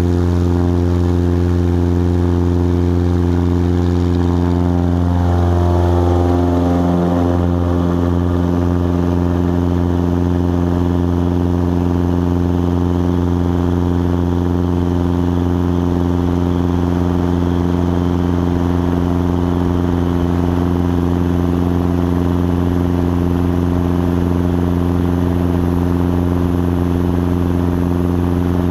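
Aviat Husky bush plane's piston engine and propeller running at takeoff power through the takeoff roll and climb-out: a steady, loud drone, with a brief wavering in pitch about six seconds in.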